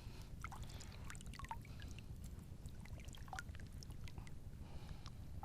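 Faint small water splashes and trickles, scattered irregular ticks, over a steady low rumble.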